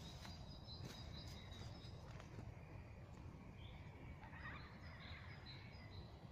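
Faint outdoor ambience: a low steady rumble with small birds chirping faintly and repeatedly in the background.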